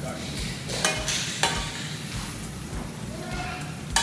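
Hot oil sizzling in a wok over a gas flame as minced garlic is added, with several sharp clicks of wooden chopsticks against a small glass bowl and the pan. The loudest clicks come about a second and a half in and just before the end.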